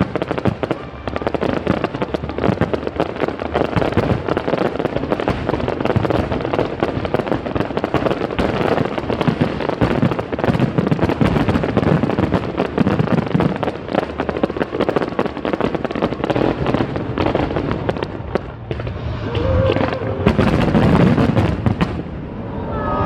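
Aerial fireworks going off in a dense, continuous run of bangs and crackling.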